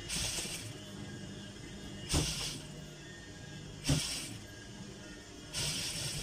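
Electric sewing machine stitching a hem and lace in four short runs of about half a second each, with a steady motor hum between the runs.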